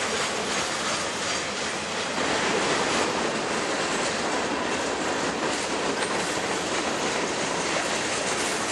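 Boxcars of a CSX freight train rolling past on steel wheels, a steady, unbroken rolling noise of wheels on rail.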